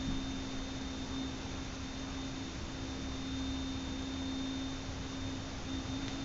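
Outdoor tornado warning siren holding a steady tone that sags slightly in pitch near the end.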